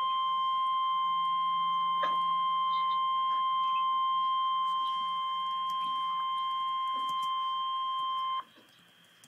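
NOAA Weather Radio warning alarm tone, a single steady tone of about 1050 Hz announcing a tornado warning. It holds level for about eight seconds and then cuts off abruptly, leaving faint hiss.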